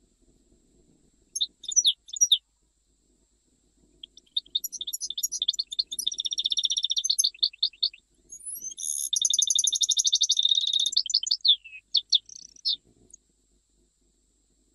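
European goldfinch singing. A few short chirps are followed by two long, fast runs of twittering trills and buzzy notes, and the song stops about thirteen seconds in.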